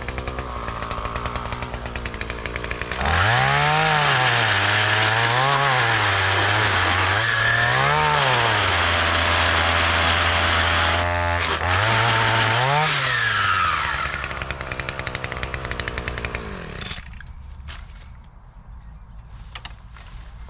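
Chainsaw idling, then revved up about three seconds in, its pitch rising and falling several times and held high for a few seconds. It drops back to idle and cuts off about seventeen seconds in.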